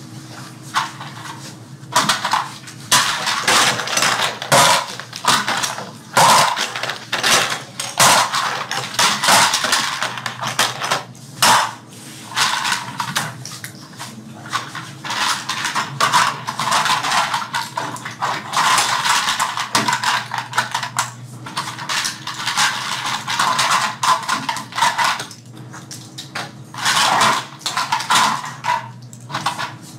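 Small hard toy airplane parts clattering and clicking as they are handled and fitted together by hand, a busy run of irregular knocks with no pauses of note.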